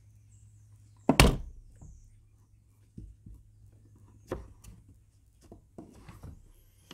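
Parts of a Daisy Avanti 753 air rifle knocking against each other and the wooden workbench as they are handled and fitted: one loud thunk about a second in, then a few lighter knocks.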